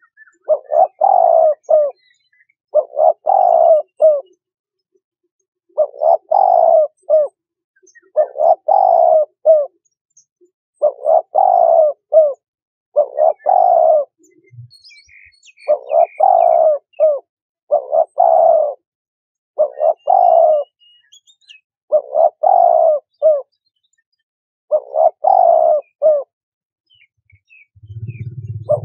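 Spotted dove cooing: a short multi-note coo phrase repeated about every two seconds, a dozen times in a row. Faint chirps of another small bird come in a few times in the middle.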